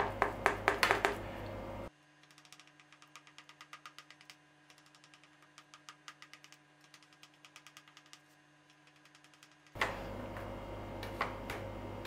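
Knife tip ticking against the bottom of a round aluminium baking tray as it scores soft dough into diamond slices. Quick, even clicks, loud for about the first second and then faint at about four a second, over a low steady hum.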